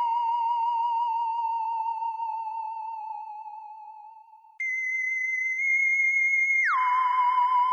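Sci-fi alien sound effect: a wavering, theremin-like electronic tone that slowly fades away. About halfway through, a higher tone starts abruptly, holds for a couple of seconds, then slides quickly down to the lower wavering tone near the end.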